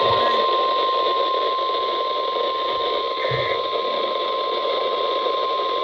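NOAA Weather Radio 1050 Hz warning alarm tone: one long, steady, high beep over radio hiss. It is the signal that an urgent warning follows, here a tornado warning.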